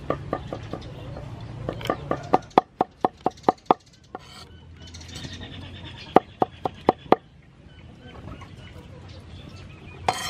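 Cleaver chopping garlic on a wooden cutting board: quick repeated knocks at about four a second, with runs of louder strokes about two to four seconds in and again around six to seven seconds.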